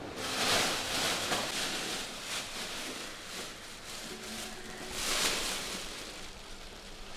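Clear plastic bag crinkling and rustling as it is handled, with louder surges about half a second in and again about five seconds in.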